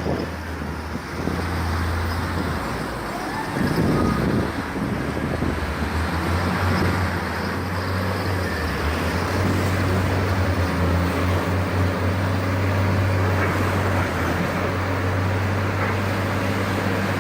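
A large machine engine running steadily with a low drone, swelling louder briefly about four seconds in.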